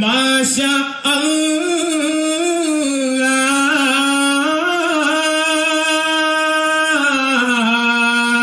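A man singing solo and unaccompanied: the lead vocal of a Duffmuttu song, a long held melodic line that bends up and down, with a short break for breath about a second in.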